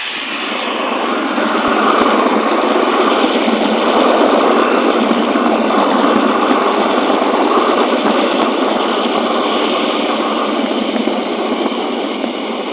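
Model train rolling along its track behind a model DSB diesel locomotive, a steady rolling noise of wheels and running gear picked up by a microphone riding on a wagon of the train.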